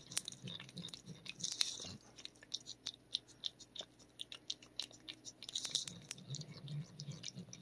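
A cat licking Churu paste treat from a squeeze tube held to its mouth: quick, wet licking clicks, several a second and irregular.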